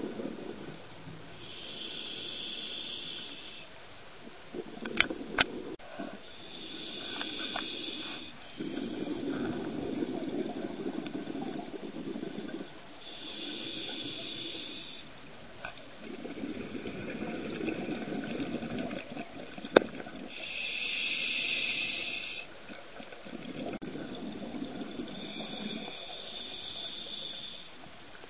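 Scuba diver breathing through a regulator underwater: a hissing inhale roughly every five to six seconds, each followed by a longer rush of exhaled bubbles. A few sharp clicks sound about five seconds in and again near twenty seconds.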